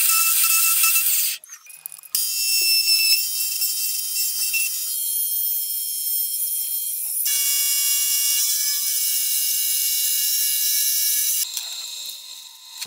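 Milling cutter machining the steel face of an anvil, a loud, high-pitched ringing whine of several steady tones. It comes in short spliced stretches that shift in pitch at each cut, with a brief drop about a second and a half in, and turns quieter and different near the end.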